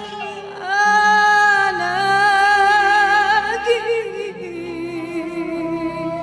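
A woman singing an Arabic devotional song, drawing out long melismatic notes with vibrato over a soft accompaniment.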